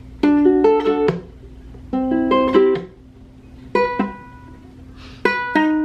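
Córdoba ukulele playing chords in short plucked phrases, a few notes at a time. Four phrases are separated by pauses of about a second.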